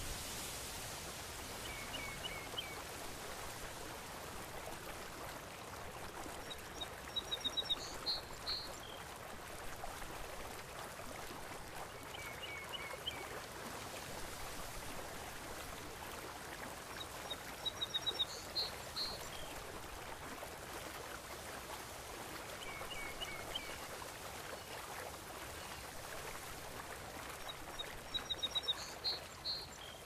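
Steady wash of water with birds chirping over it: a short phrase of quick high chirps about every five seconds, every other phrase louder and faster.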